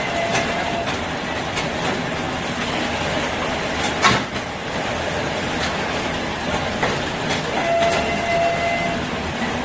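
A machine running with a steady rattling rumble, scattered clicks and one sharp knock about four seconds in.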